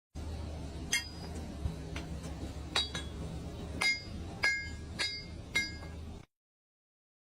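Metal striking metal: about six sharp clinks with a short ringing tone, spaced unevenly about half a second to two seconds apart, over a steady low hum.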